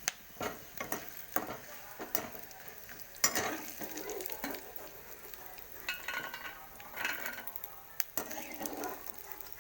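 Food frying in a pan with a faint sizzle, while a utensil stirs it and knocks and scrapes against the pan in irregular clacks; the sharpest knock comes about three seconds in.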